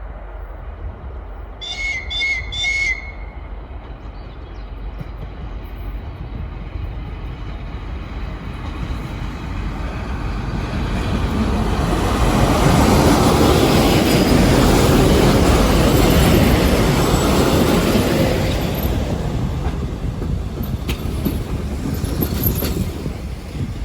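Three short high toots of a train's whistle about two seconds in, then a train running past, its rumble building to a peak in the middle and fading away.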